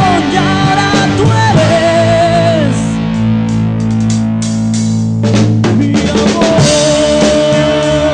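Rock band music: electric guitar over a drum kit. The drums thin out under a held chord in the middle and come back in with a run of hits about five seconds in.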